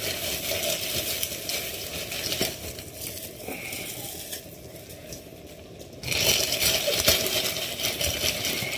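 Chicken, bacon and onion sizzling and crackling in a hot wok as frozen leeks are dropped in by hand, with the crinkle of a plastic freezer bag. The sizzle grows louder about six seconds in.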